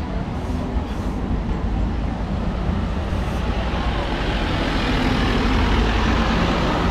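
Street traffic with a steady low engine rumble. It grows louder over the last few seconds as a vehicle comes close.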